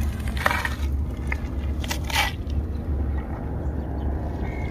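Wind rumbling on the microphone, with two brief crunching noises about half a second and two seconds in.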